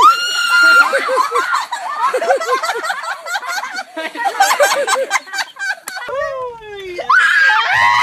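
A girl screaming at a bird that is chasing her, with laughter and a few words mixed in. A long cry falls in pitch near six seconds, and another loud shriek starts just before the end.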